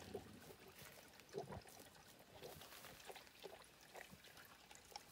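Faint, irregular slurping and sipping of a Zwartbles sheep drinking water from a plastic bucket.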